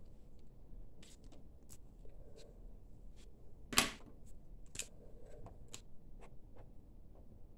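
Plastic fineliner pens being handled on a table: light taps and small clicks as one pen is set down and another picked up and uncapped, with one sharp click about four seconds in. Near the end, faint scratching of a fineliner tip writing on paper.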